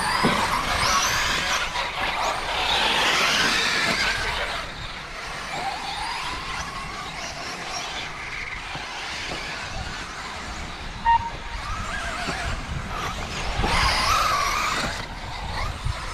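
1/8-scale brushless electric RC truggies racing past, their motors whining up and down in pitch with tyre noise on the track. They are loudest in the first few seconds and again about 14 seconds in. A short beep sounds about 11 seconds in.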